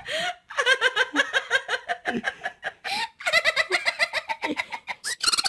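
High-pitched giggling laughter in two long runs of rapid 'ha' sounds, about eight to ten a second, broken by short gasping breaths.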